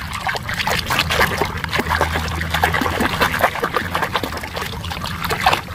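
Water splashing and sloshing in a plastic tub as a hand scrubs plastic toy animals in muddy water: a steady run of small, irregular splashes.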